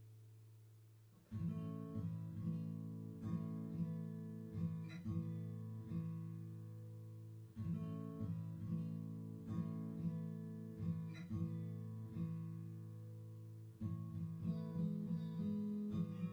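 Background music: acoustic guitar strumming chords in a steady rhythm. Each phrase ends on a chord left to ring out and fade, about a second in, again around seven seconds and around thirteen seconds, before the strumming starts again.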